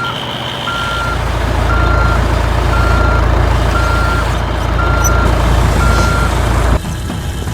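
Truck reversing alarm beeping steadily, about once a second, over a low engine rumble. The rumble cuts off suddenly near the end.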